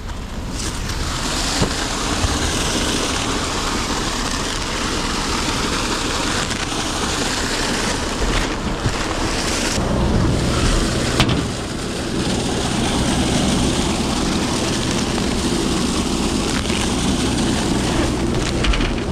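Engine running steadily under wind noise on the microphone; about halfway through a deeper, steady engine hum comes in and holds.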